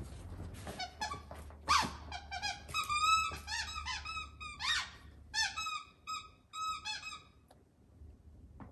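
Plush banana squeaky toy squeaked over and over as a puppy chews it: a long run of short squeaks, some sliding up or down in pitch, that stop near the end.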